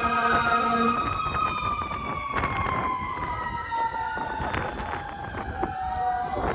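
Emergency-vehicle siren wailing. It holds a steady chord of tones for about the first second, then slides slowly down in pitch while another wail rises across it.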